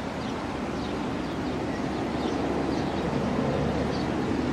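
Steady low rumbling background noise, slowly growing louder, with faint short high ticks scattered through it.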